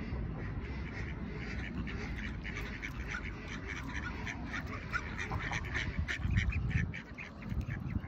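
A flock of mallard ducks quacking: many short calls overlapping, coming thickest in the middle and latter part, over a steady low rumble.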